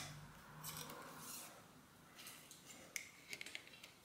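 Faint scraping of a steel shift cable sliding through its cable housing, followed by a few light clicks of the cable and housing being handled at the shifter.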